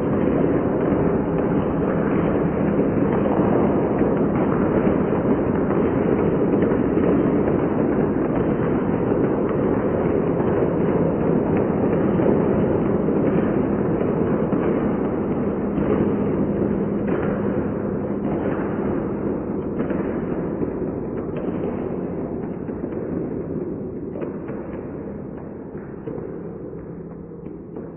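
Applause, many hands clapping, slowed down and drenched in reverb, so the claps blur into a dense, low, rumbling wash. It fades out gradually over the last several seconds.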